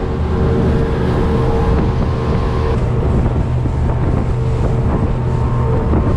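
Boat motor running steadily underway, a constant low drone, with wind rushing over the microphone.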